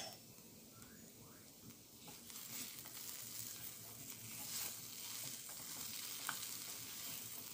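Curry-spiced potato cubes sizzling faintly in oil in a pot, stirred and turned with a silicone spatula from about two seconds in.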